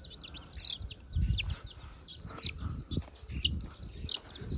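Domestic chicken chicks peeping: repeated high, downward-sliding cheeps, about two a second. Low rumbles of handling noise on the microphone come in from about a second in.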